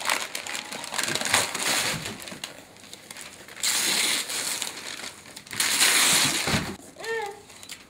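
Wrapping paper being torn and crumpled off a present, in three long rustling stretches with short pauses between.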